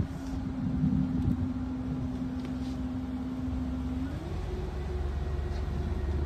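Tour boat's motor running steadily, its hum rising in pitch about four seconds in as it speeds up, with a deeper rumble growing underneath.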